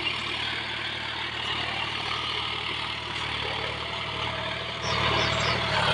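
John Deere 5105's three-cylinder diesel engine running steadily at about 1600 RPM under load, pulling a cultivator through the soil in the low range of top gear. It holds its speed without bogging down. It gets slightly louder about five seconds in.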